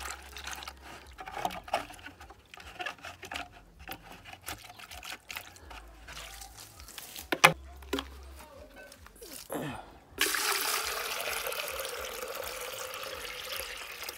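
Water poured from a bucket into a plastic chicken waterer, a steady splashing stream that starts about ten seconds in and is the loudest thing heard. Before it, scattered light knocks and clicks, with one sharp knock about halfway.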